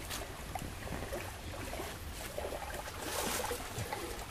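Rustling and soft handling noise as hands pack eels, chili peppers and leaves into a split banana stalk, with a louder rustle about three seconds in, over a steady low rumble.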